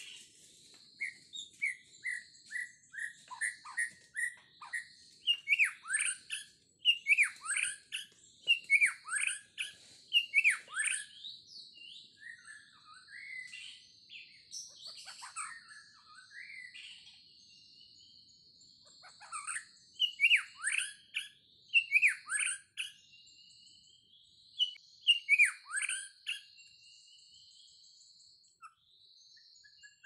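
Birds calling in forest undergrowth. Bursts of loud, sharp, downward-sweeping calls come about one a second, with quieter runs of short chirps between them, over a steady high-pitched buzz.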